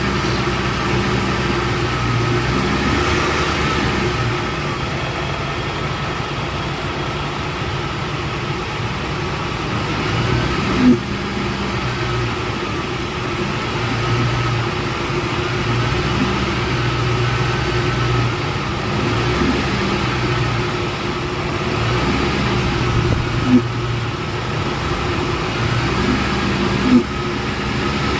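2003 Ford F-150's 4.6L V8 engine idling, with a faint whine that rises and falls in pitch every few seconds and a few short sharp clicks; the owner calls the noise weird and does not know its cause.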